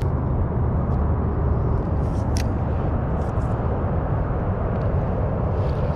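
Wind buffeting the microphone, a steady low rumble, with a single light click about two and a half seconds in.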